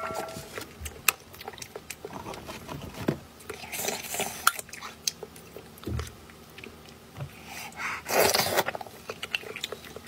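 Close-up eating sounds: a metal spoon clicking and scraping inside a roasted marrow bone, with chewing and two louder bursts about four and eight seconds in. A notification-bell chime from the on-screen subscribe button fades out at the very start.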